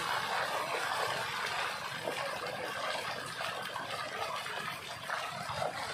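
Water splashing and sloshing in a steady wash.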